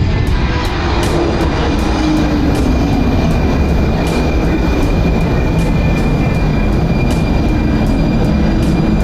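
Prague metro train running at speed: a steady loud rumble with sharp clicks every second or so.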